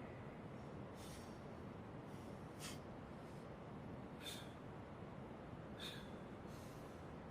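Faint massage strokes, hands rubbing over skin and hair, a short swish about every second and a half over a steady low hiss.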